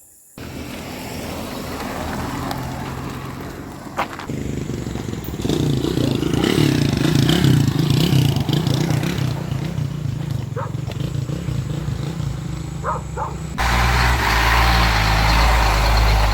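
A motor vehicle engine running, its low hum rising and falling and growing louder from about five seconds in. Near the end it cuts abruptly to a louder, steadier engine drone.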